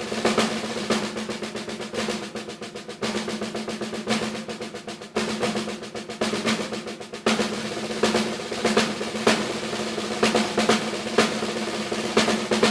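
Solo concert snare drum played in fast rolls broken by sharp accented strokes. Under the strokes the drum's head rings with a steady low tone.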